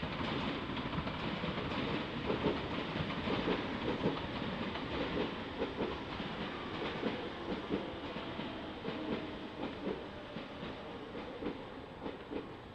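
A train passing at a level crossing: steady rumble of its wheels with repeated clacks over the rail joints, slowly fading toward the end.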